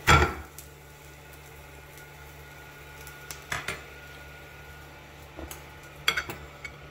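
A fork and a grilled steak being set down on a plate, with one loud clatter at the start, then a few lighter clinks of the fork against the plate about halfway through and near the end.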